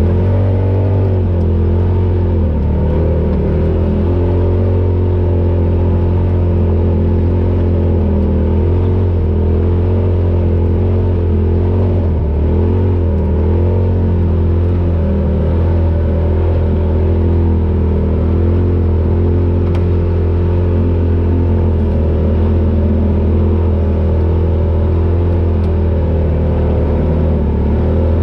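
Polaris RZR Pro XP side-by-side's engine running under way, loud and steady, with a strong low hum. Its pitch rises and falls gently as the throttle changes.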